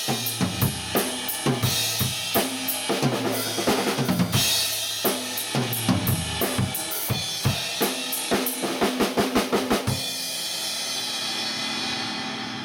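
Drum kit playing a beat on kick, snare and cymbals, with a quick fill of rapid hits about nine seconds in, then the cymbals ringing out and fading. The listeners hear a lot of cymbals and not enough kick.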